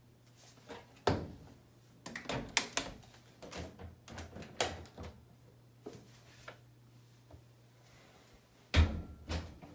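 Scattered clicks and knocks of a door or lid being handled, with a louder thump near the end, over a faint steady low hum.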